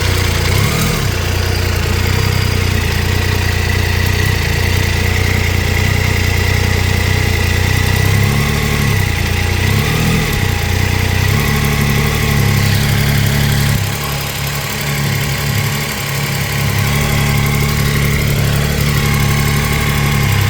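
Triumph Tiger 800 XRT's three-cylinder engine idling, briefly blipped a few times. The engine has a ticking noise that new exhaust header crush gaskets and a spark plug check have not cured, and the owner doesn't know its cause.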